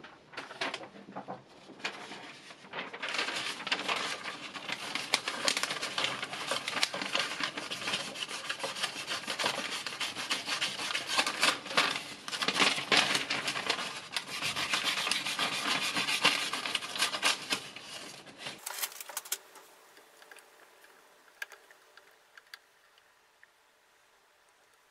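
Sheet of paper rustling and crinkling as a folding knife blade is slice-tested through it. About 18 seconds in this cuts off, leaving only scattered light clicks of the knife being handled.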